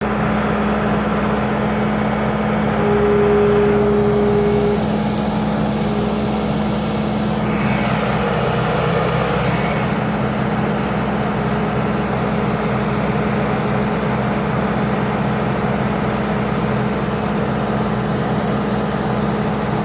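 Vehicle engine running steadily, an even low hum that neither rises nor falls, with a brief higher tone about three seconds in.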